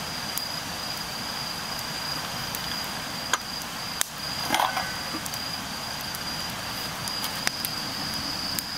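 Split-wood campfire crackling, with a few sharp pops, over the steady high trill of crickets.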